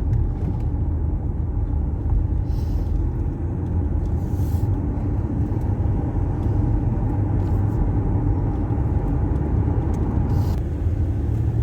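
Car driving along a road: a steady low engine and tyre rumble.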